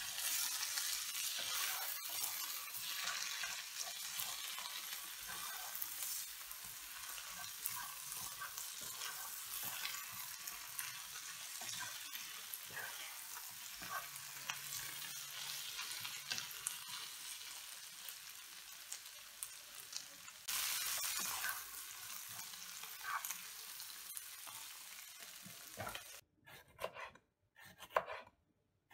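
Sliced onions sizzling in a frying pan as a wooden spoon stirs them. Near the end this gives way to a few separate strokes of a kitchen knife slicing a pepper on a wooden cutting board.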